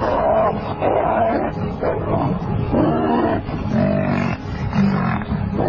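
Lions and African buffalo roaring, growling and bellowing in a fight, loud calls overlapping one after another.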